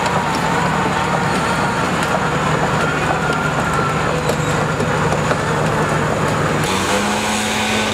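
Diesel engine of a tracked asphalt paver running steadily, with a wavering high whine in the first few seconds and light clanking from the crawler tracks. Near the end the engine note steps up in pitch.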